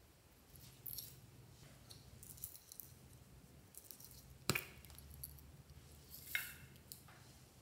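Small plastic makeup containers being handled and opened: soft taps and rustles, a sharp plastic click about four and a half seconds in, and another knock near the end as the contents are tipped out onto a glass dish.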